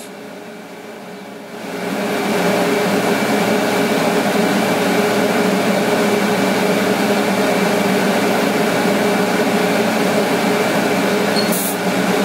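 TIG welding arc on a Longevity TIGWELD 200DX welding hot-rolled steel in pulse mode: a steady hissing buzz with a faint hum. It gets louder about two seconds in and dips briefly near the end.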